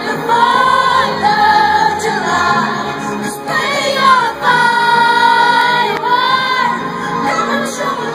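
Live pop concert music heard from the audience through a loud PA: a woman's lead vocal singing long held notes over the band.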